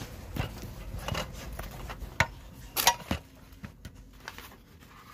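Hands rummaging through old paper items: a run of rustles and clicks with two sharper knocks past the middle, then softer rustling as sheets of old checks are leafed through.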